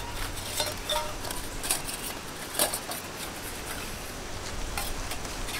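Thin metal panels of a flat-pack folding wood stove clinking and scraping together as they are taken from a cloth pouch and set down, a series of sharp clinks with the loudest about two and a half seconds in. One knock about a second in leaves a brief metallic ring.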